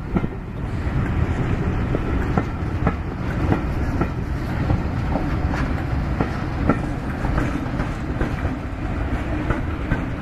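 Passenger coaches rolling slowly over rail joints and pointwork, wheels clicking irregularly about once or twice a second over a steady low rumble.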